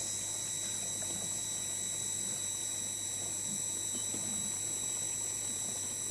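Water running from a hose into the plastic tank of a knapsack sprayer as it is filled, under a steady high-pitched chorus of crickets and a low hum.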